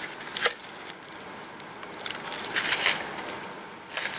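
A clear plastic clamshell of golden berries being handled and opened: a sharp plastic click about half a second in, a crackling rustle near the middle, and another click near the end.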